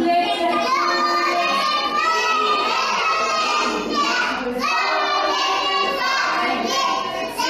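A group of young children singing together in unison, an action song with hand gestures.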